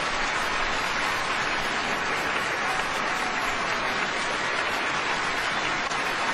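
Large theatre audience applauding, a steady dense wash of clapping.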